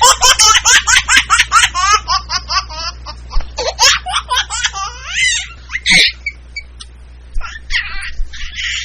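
A baby laughing: a run of quick high-pitched laughs, about five a second, then looser giggles, a brief pause, and more laughing near the end.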